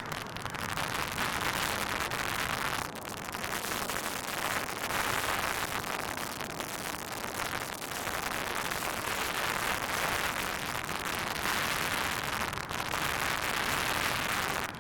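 Heavy wind buffeting the microphone: a rough, rushing hiss that swells and eases every few seconds, with no engine tone standing out.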